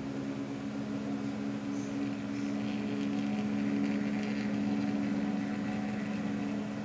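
Tiko delta 3D printer's stepper motors whining steadily on two held tones as the effector is driven slowly down toward the print bed.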